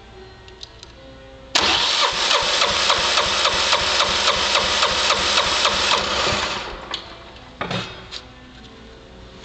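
Kohler gasoline engine turned over by its electric starter about a second and a half in, cranking with a steady pulsing rhythm for about five seconds, then winding down without catching.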